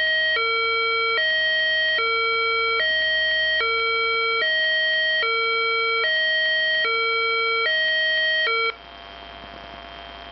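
Homemade electronic siren sounding a two-tone hi-lo wail, switching between a lower and a higher buzzy tone about every 0.8 seconds. It cuts off suddenly near the end, leaving a faint steady electronic hum with a thin high whine.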